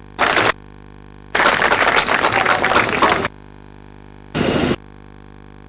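Audience applause, heard in three sharply cut spells: a brief burst, about two seconds of clapping, and a second brief burst near the end, with a low steady electrical hum between them.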